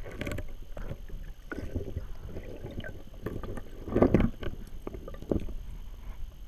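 Muffled underwater sloshing and rumble picked up by a submerged GoPro camera in its housing, with irregular knocks and swishes as the camera is moved. The loudest cluster comes about four seconds in.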